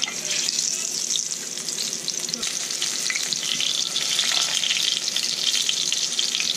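Egg-coated banana pieces sizzling and crackling in hot oil with soy sauce and sriracha in a skillet, while a fork pushes them around the pan.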